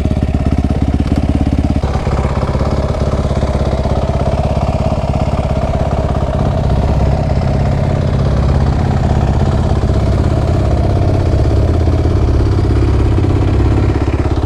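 Suzuki RM-Z450's single-cylinder four-stroke engine, its top end freshly rebuilt, running steadily at low revs with no revving. Its sound shifts slightly about 2 seconds in and again about 6 seconds in.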